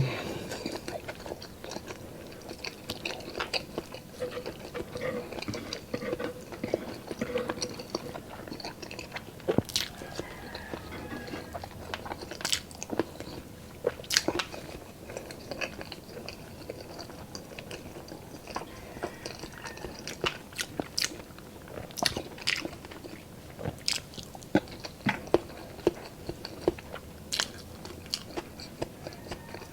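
Close-up sounds of a person eating oily pork adobo with rice: chewing and biting, broken by irregular sharp smacks and clicks.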